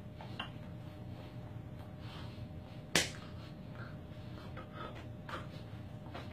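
A single sharp click about halfway through, over a steady low hum and a few faint small knocks.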